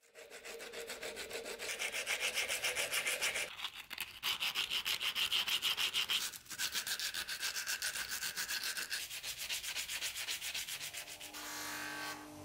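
Hand file rasping back and forth on a metal scabbard fitting clamped in a vise, in quick even strokes of about five a second, with two short pauses. Near the end the strokes stop and an electric bench grinder's motor starts and hums steadily.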